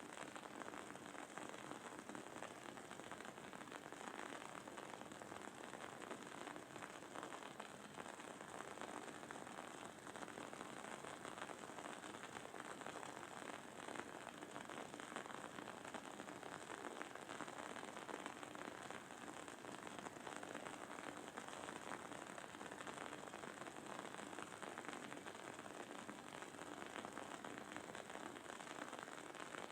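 Wooden candle wick burning with a soft, continuous crackle: a dense, fast patter of tiny pops with a faint sizzle under it.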